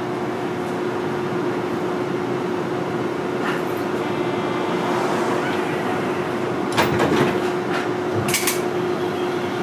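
Inside a Manyosen MLRV1000 low-floor tram at a stop: the steady hum of the car's equipment with one even tone, then a few sharp clunks about seven seconds in and again near the end, just before the car sets off.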